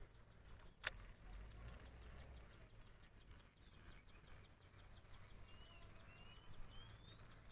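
Quiet outdoor ambience with a single sharp click about a second in, faint rapid high ticking after it, and a few short rising bird chirps near the end.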